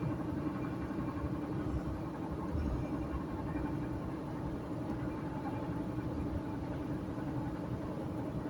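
Car driving at steady speed on a highway, heard from inside: a constant engine drone over road and tyre rumble.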